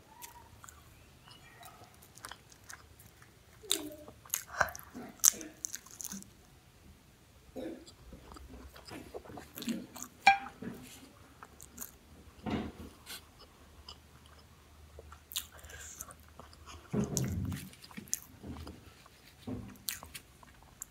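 Biting and chewing of a fried samosa, the crisp pastry crackling in irregular bursts between wetter chewing sounds.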